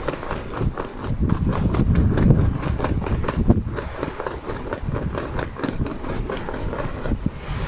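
A shirt flapping fast and repeatedly in strong wind: quick, irregular cloth snaps over a low rumble of wind.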